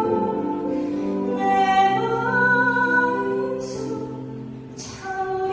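A woman singing a slow Korean Catholic worship song into a microphone over soft, sustained instrumental accompaniment. The phrase eases off and briefly dips about four and a half seconds in, then the singing resumes.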